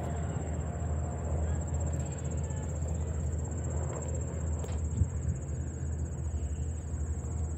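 An insect trilling steadily in a high, even, fast-pulsing note, over a steady low rumble. There is a single soft knock about five seconds in.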